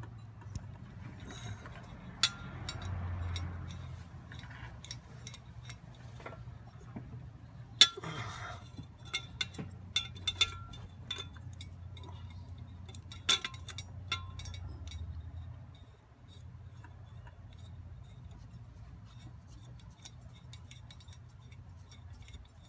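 Metal hand tools and parts clinking and tapping now and then, with a sharp clink about 8 seconds in and a cluster of clicks after it, over a steady low hum.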